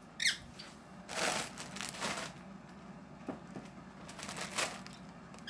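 Crinkling and rustling of packaging or paper being handled, in two spells of about a second each.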